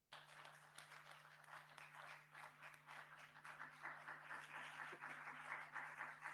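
Audience applauding, starting suddenly and growing gradually louder, over a steady low electrical hum.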